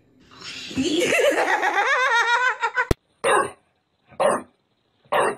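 A person laughing in a high, warbling voice, cut off by a sharp click, then an English bulldog barking in short single barks about once a second, three times.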